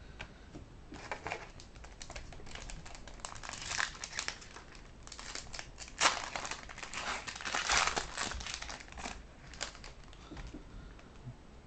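Foil wrapper of a 2010-11 SP Authentic hockey card pack crinkling and crackling as it is torn open by hand and the cards are pulled out, loudest about six to eight seconds in.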